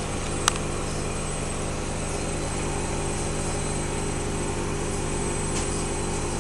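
Washing machine running with a steady motor drone and hum, with one sharp click about half a second in.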